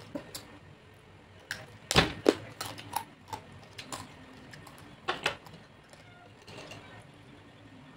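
Tableware being handled on a table: scattered sharp clicks and knocks, the loudest about two seconds in, with another pair a little after five seconds.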